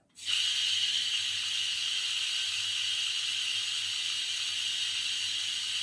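Water jet from a hose nozzle spraying into a tank of water, switched on abruptly just after the start and then a steady, even hiss.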